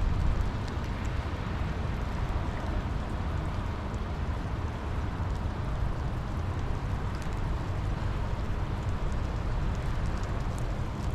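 Steady rain falling, an even hiss with a low rumble beneath it and a few faint drop ticks.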